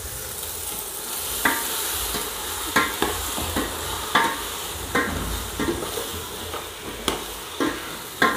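Metal ladle stirring potatoes and peas through hot oil and masala in a metal cooking pot, scraping and knocking against the pot about once a second over a steady sizzle of frying.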